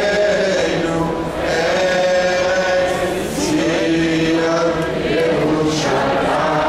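A large crowd chanting in unison, many voices together holding long notes that rise and fall.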